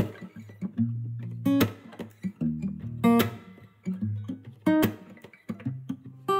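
Background music: an acoustic guitar strumming a chord about every second and a half over low held notes.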